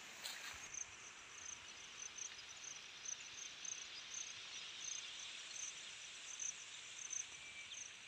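Insects, crickets by their sound, chirping in open grassland: a faint steady high hiss with a pulsed chirp repeating two or three times a second.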